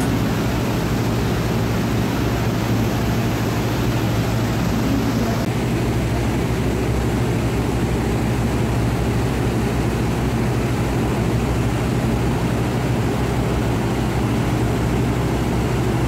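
Excursion boat's engine running steadily under way: an even drone with a steady low hum, over the rush of its wake.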